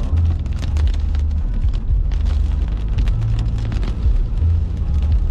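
Loud low rumble of a vehicle on the move, with irregular buffeting surges and frequent crackling knocks.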